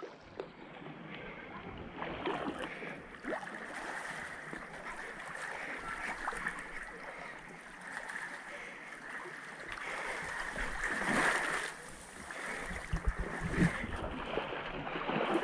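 Small waves lapping and trickling over a pebble shore, a steady wash full of little clicks and splashes, with a few low rumbles about two-thirds of the way through.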